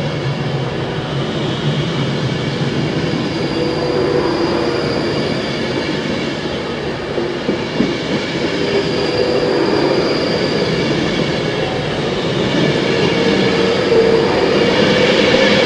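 Avanti West Coast Class 390 Pendolino electric train passing through at speed, close by. It makes a steady rush of wheels on rail and air with a faint whine, growing a little louder near the end.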